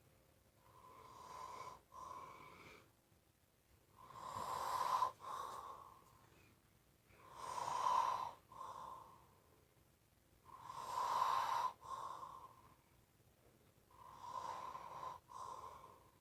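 A person snoring loudly in a slow, even rhythm, about one breath every three seconds. Each breath swells up and breaks off sharply into a shorter second part, with a steady whistling note running through it.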